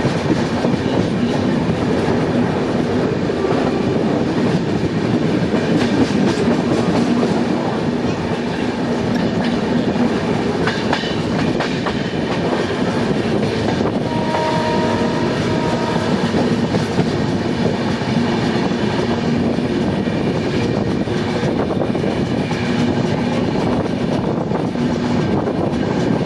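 Passenger train running along the track with a steady rumble and clickety-clack of the wheels. About halfway through, a two-tone locomotive horn sounds briefly for about two seconds.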